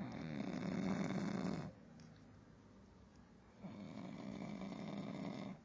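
Snoring in sleep: two long, rasping snores, the second starting about two seconds after the first ends.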